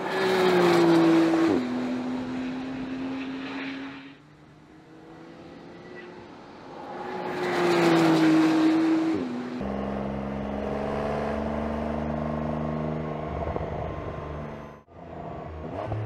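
Porsche 911 GTS flat-six engine running hard as the car passes on a race track, its pitch stepping down sharply at an upshift about a second and a half in before it fades away. A second hard pass follows with another sharp drop in pitch at an upshift near the middle, then a steadier engine note for about five seconds that cuts off abruptly near the end.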